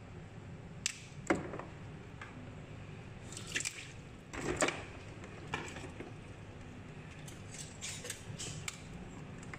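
Irregular splashes and drips of water as crabs are lifted and handled in a plastic basin of water, with a few sharp clicks of hard shell knocking. A low steady hum runs underneath.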